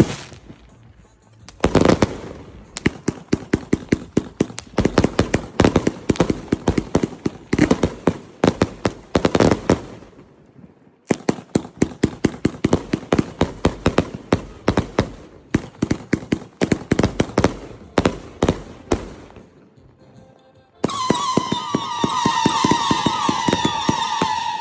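Ghostbusters 140-shot firework cake firing two long volleys of rapid shots, several a second, with crackling. About 21 seconds in these give way to a sustained, wavering, multi-tone howling whistle.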